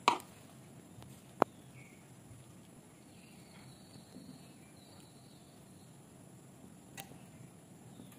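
Two sharp knocks, the first right at the start and the loudest, the second about a second and a half later, and a faint tick near the end, over quiet room noise. They are a metal spoon knocking against a non-stick frying pan while the filling is scooped into dough.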